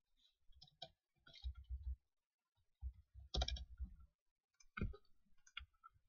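Computer keyboard and mouse clicks in several short, irregular clusters, a few keystrokes at a time, the busiest run about three to four seconds in.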